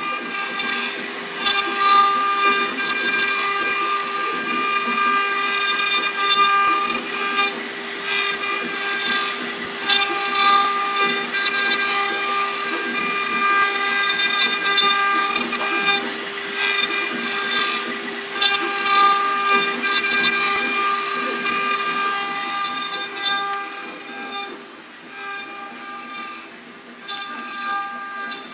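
A CNC router's spindle running with a steady whine while its bit carves a wooden workpiece turning on the rotary axis. A rasping cutting noise rises and falls over the whine, with scattered ticks. It is a little quieter a few seconds before the end.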